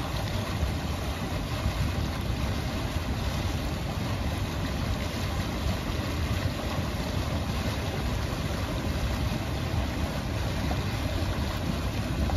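Underwater pool jet churning the water: a steady rushing, bubbling noise.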